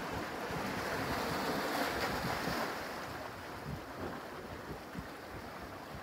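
Small waves washing in over rocks at the shoreline and draining back, swelling about a second or two in and then easing, with wind buffeting the microphone.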